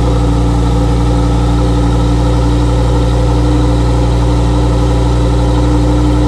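Lamborghini Huracán STO's 5.2-litre V10 idling steadily, heard from right behind its exhaust tips; the exhaust is valve-controlled and has no particulate filter.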